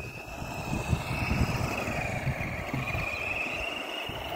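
Brushed electric motor of a 1/10-scale 4WD RC rock racer running on its stock 7.2 V NiMH battery: a thin whine that dips and rises in pitch with the throttle, over a louder low rumble.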